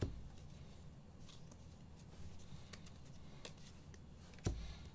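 Trading cards being handled and flipped through by hand: faint sliding and tapping of card stock over a low room hum, with a short knock at the start and a louder one about four and a half seconds in.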